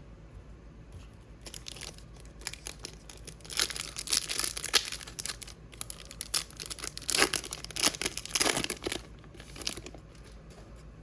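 Plastic-foil wrapper of a hockey trading-card pack crinkling and tearing as it is ripped open, in crackly bursts that are loudest about four and eight seconds in.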